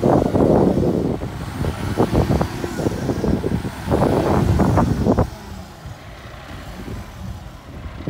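Dump truck tipping its load: the engine runs to drive the hydraulic hoist while dirt and rocks slide out of the raised bed with a heavy, irregular rumbling. The rumbling drops away about five seconds in, leaving a quieter engine sound.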